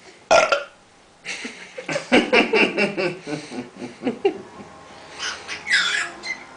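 A baby squealing and babbling: a short high squeal, then a long run of wavering babbling squeals, and a falling squeal near the end.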